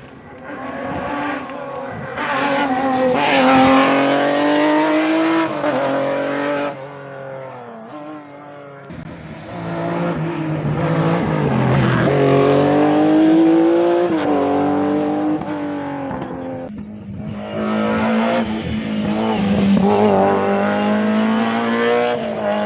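Rally cars driven hard, the engine note climbing under full throttle and dropping back at each gear change. The sound breaks off sharply twice, about a third and about three-quarters of the way in, and then another car takes over.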